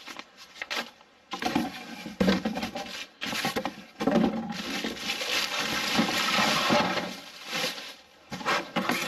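Thin plastic bag rustling and crinkling as it is pulled off an antenna dome in a cardboard box, with the cardboard rubbing. It comes in several bursts, the longest lasting about three seconds from about four seconds in.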